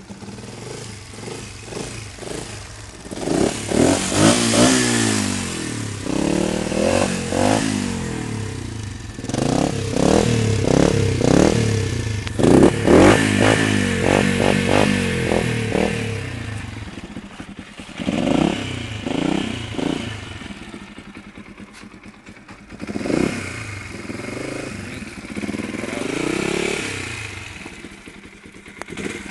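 Husqvarna 125 four-stroke supermoto engine revved again and again, its pitch rising and falling with each throttle opening and easing back between revs.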